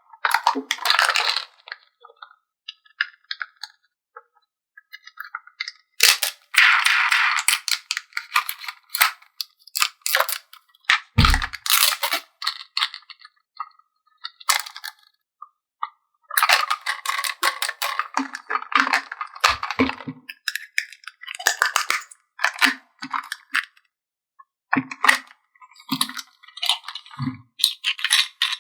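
Plastic toy pieces and packaging handled during an unboxing: irregular bursts of crinkling, light clicks and small clatter, with longer crinkly stretches twice.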